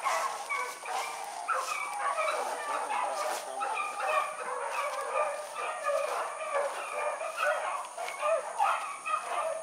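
A pack of beagles baying while running a rabbit, many voices calling over one another without a break.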